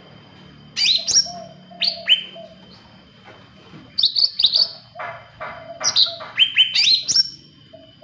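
A caged cucak ranting leafbird singing: loud clusters of sharp chirps, each sweeping quickly downward in pitch, coming in several bursts with short pauses between them.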